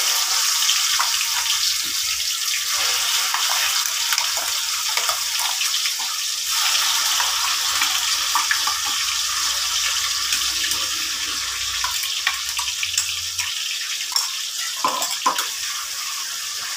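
Tomato and roasted-onion paste sizzling in hot oil in a pan, a loud steady hiss with fine crackles that slowly dies down as the paste fries. Two short knocks near the end.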